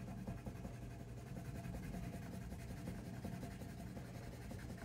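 Faint scratching of a crayon rubbed back and forth on paper, colouring in a drawing, over a low steady hum.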